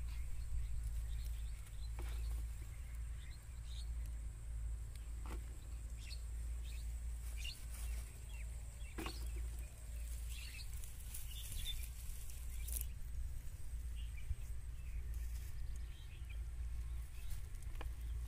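Open-field ambience: a steady low wind rumble on the microphone with faint scattered bird chirps and a few light clicks. A thin high whine runs until about three-quarters of the way through.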